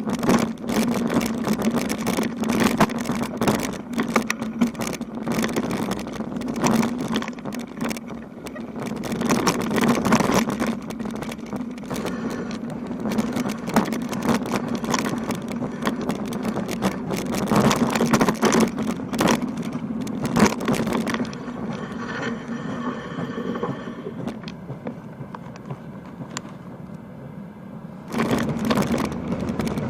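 Riding noise from a bicycle on a rough country road: wind on the microphone, tyre noise and rattling jolts. There is a steady low hum throughout. It eases off from about 21 s to 28 s, then returns at full level.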